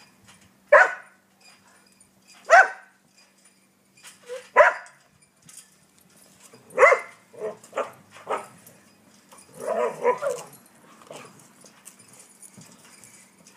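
Dog barking: three single barks about two seconds apart, then a quicker run of barks from about seven seconds in and a longer burst around ten seconds.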